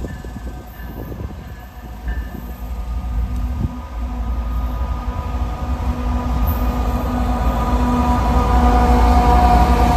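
Freight train approaching, its low rumble growing steadily louder, with a few steady tones rising above it from about four seconds in.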